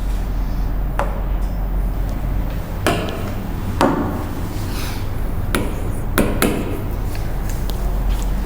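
A handful of sharp knocks and taps, irregularly spaced, over a steady low hum.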